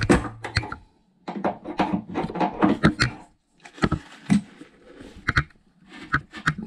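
Clicks and clatter of an adjustable spanner working the compression nut on a toilet cistern's water supply connection to loosen it, with sharp metal-on-metal knocks scattered through.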